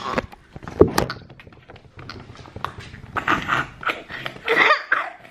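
A toddler coughing and gagging on a bite of bread, in rough bursts in the second half, with a sharp knock about a second in.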